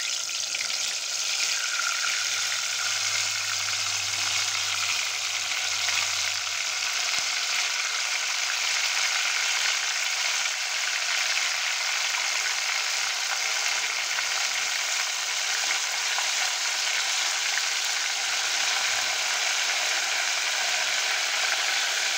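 Marinated boneless chicken pieces deep-frying in hot oil in a deep pot: a steady, dense sizzle of bubbling oil.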